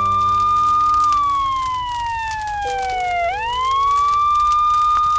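Emergency-vehicle siren wailing. It rises and holds a high note, slides slowly down, then swoops back up about three seconds in and holds again. A low steady tone sounds beneath it.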